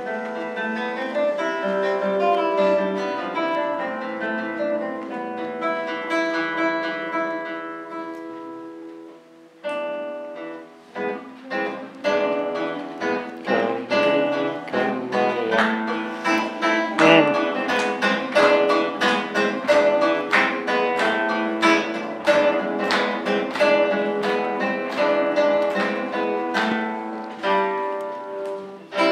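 Solo classical guitar playing: a passage of sustained, ringing notes fades away about nine seconds in, then a brisk, louder passage of rapidly plucked notes follows.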